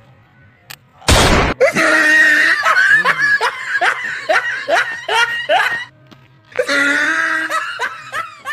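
A sharp, loud burst about a second in, then a voice in loud, repeated falling whoops, about two a second, in the manner of exaggerated laughter or screaming; they break off briefly near six seconds and start again.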